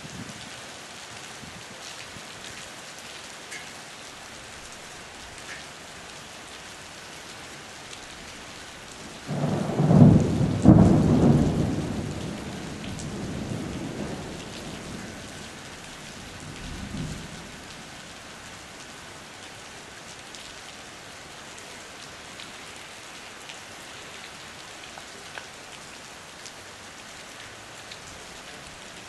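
Heavy rain falling steadily on the street and pavement during a thunderstorm. About nine seconds in, a sudden loud thunderclap rumbles on for several seconds, and a smaller rumble of thunder follows a few seconds later.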